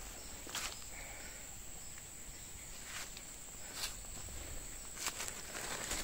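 Footsteps crunching on dry leaf and bamboo litter, a few uneven steps. Under them runs a steady high-pitched insect drone.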